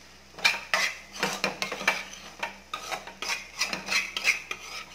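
Metal spatula scraping and clanking against a metal kadai while stirring egg poriyal, in quick repeated strokes about two to three a second, some strokes ringing briefly.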